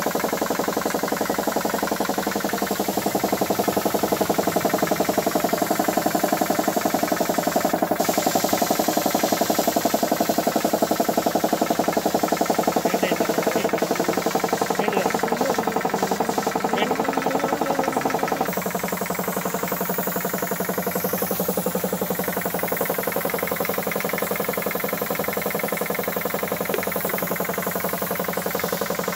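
Piston air compressor running steadily with a fast, knocking pulse, supplying air to a paint spray gun. It drops a little in level and tone about two-thirds of the way in.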